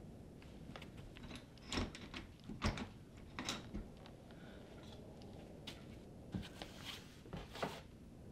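Irregular soft knocks and clicks of a person moving around a wooden door: footsteps on a wooden floor and handling of the door. The loudest knock comes a little under three seconds in.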